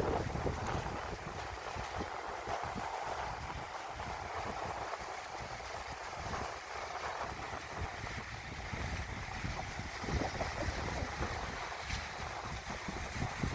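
Wind buffeting the microphone in irregular gusts over a steady wash of noise.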